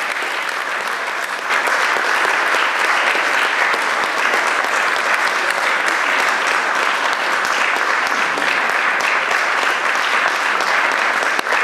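Audience applauding, growing louder about a second and a half in.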